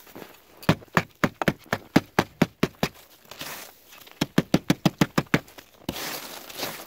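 Two runs of quick, sharp knocks, about five a second, with a stretch of crunching noise near the end.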